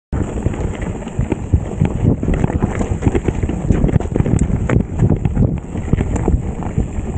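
Mountain bike riding fast over a rough forest trail: tyres and frame rattling and knocking irregularly over roots and rocks, with wind buffeting the microphone. The sound drops out for a split second at the very start.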